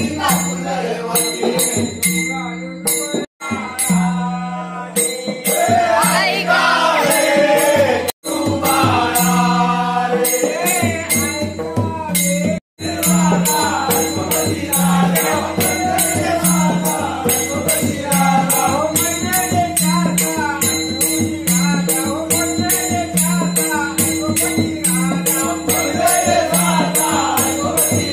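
Men singing a Jakhadi folk song together, with a rope-tensioned dholki drum keeping a steady beat a little faster than once a second and small brass hand cymbals jingling. The sound cuts out for an instant three times.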